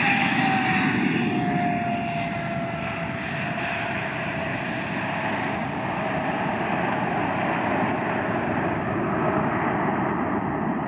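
Boeing 777-300ER's twin GE90 turbofans at takeoff thrust as the airliner lifts off and climbs away: a steady jet rumble with an engine whine that falls in pitch over the first few seconds as the aircraft passes.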